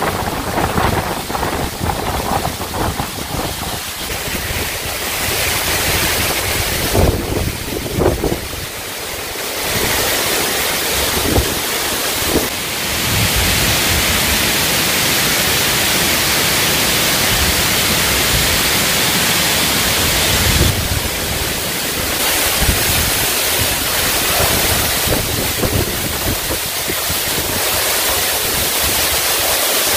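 Waterfall rushing: a steady, dense roar of falling water. Wind gusts hit the microphone in the first half.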